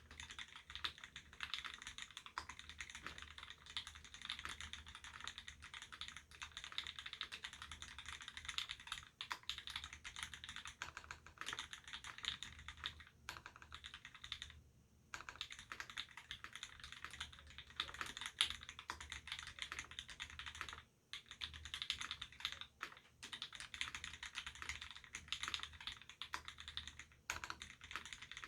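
Duck Octagon v3 mechanical keyboard typed on fast and continuously: lubed Gateron Ink Black linear switches on a stainless steel plate, with GMK Mizu keycaps, giving a dense run of keystroke clicks. Typing pauses briefly about halfway and again about two-thirds in.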